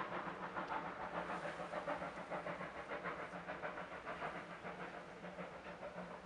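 A class 52 steam-hauled gravel train moving away: a rapid rhythmic beat, about five a second, over a steady hiss, slowly fading.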